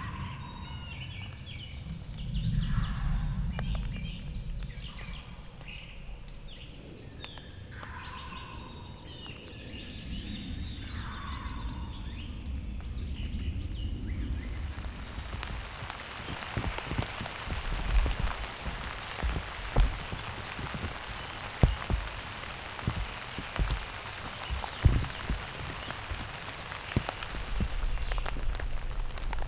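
Songbirds calling and chirping over faint background noise, then about halfway through a steady patter of rain takes over, with heavy drops striking close by in sharp irregular hits.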